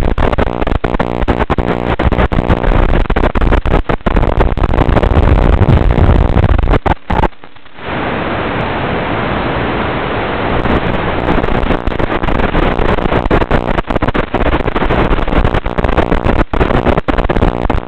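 Small FPV quadcopter's motors buzzing with a harsh, noisy edge as it flies. The sound cuts out briefly about seven seconds in, and a steady hiss follows for a few seconds while the quad is disarmed; then the motor buzz resumes.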